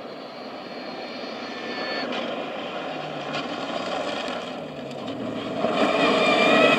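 Mitsubishi Lancer Evolution rally car's turbocharged four-cylinder engine approaching at speed on a gravel stage, growing steadily louder. The revs fall for a moment around the middle, then the sound gets much louder over the last second as the car comes close.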